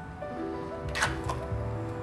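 Background music: a melody of held notes over a steady bass line, with a sharp percussive hit about a second in.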